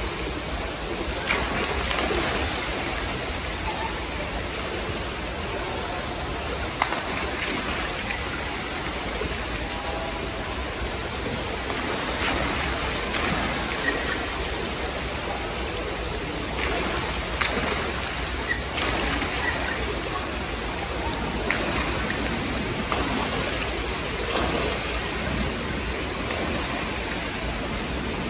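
Water from splash-pad fountains pouring and spraying into a shallow pool: a steady rushing and splattering, with a few sharp clicks every several seconds.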